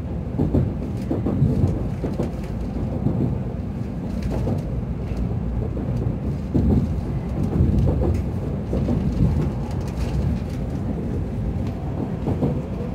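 Steady low rumble of a Shinkansen train running at low speed, heard from inside the passenger car, with irregular knocks from the wheels on the track.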